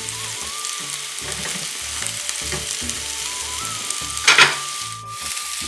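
Minced-chicken kababs shallow-frying in oil in a pan, a steady sizzle, with a short loud clatter about four seconds in.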